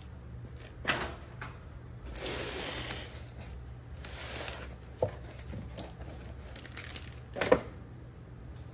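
Cardboard boxes and packaged parts being handled on a steel workbench: rustling and sliding, a few light knocks, and one sharp knock about 7.5 seconds in, over a low steady hum.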